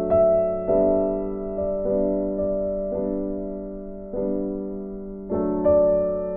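Slow instrumental background music: soft chords struck about once a second, each left to ring and fade.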